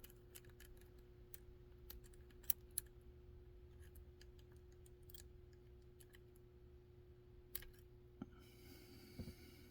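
Faint, scattered metallic clicks of a pick working the discs inside a 40 mm disc detainer padlock, over a steady faint hum.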